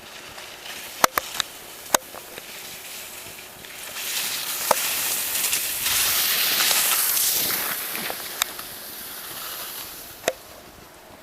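Skis sliding over snow: a hiss that swells for a few seconds in the middle and then fades, with several sharp clicks along the way.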